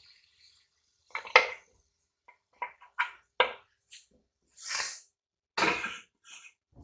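Spoon and blender jar clattering as blended tamarind paste is emptied into a kadhai: several sharp taps and knocks, then a couple of longer scraping swishes.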